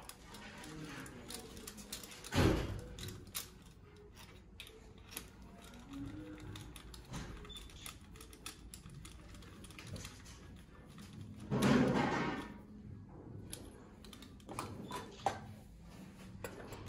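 Gloved hands and tools handling a bare Mercedes OM651 diesel engine, with scattered clicks and taps, as the compression gauge is taken off one cylinder to go on the next. Two louder bumps stand out, one about two and a half seconds in and one about twelve seconds in that lasts about a second.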